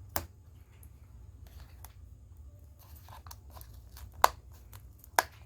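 Sharp clicks and light crackling of plastic being handled as a laptop screen panel is worked loose, with three louder clicks: just after the start, a little past four seconds and near the end.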